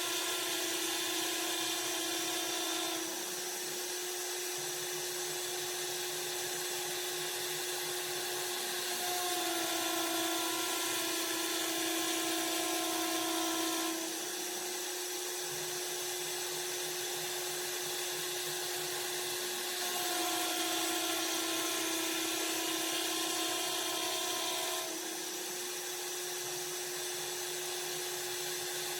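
Spindle motor of a CNC woodworking machine whining steadily as it cuts wood. Its tone shifts a little and it goes slightly louder and softer in turns every five or six seconds.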